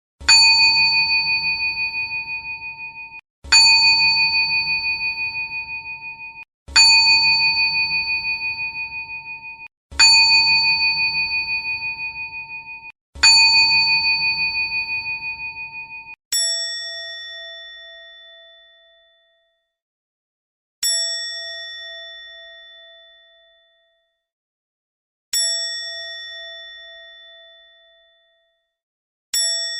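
A small struck bell giving the 'chiin' ding, rung nine times. The first five strikes come about three seconds apart with a higher, slightly wavering ring that is cut off just before each next strike. The last four are a lower-pitched bell struck about four and a half seconds apart, each ringing out and fading away.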